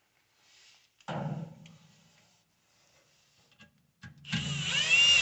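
Cordless drill with a right-angle attachment and nut driver bit, driving the screws of a washing machine's motor mounting brackets: a short burst about a second in, then a longer, louder run near the end.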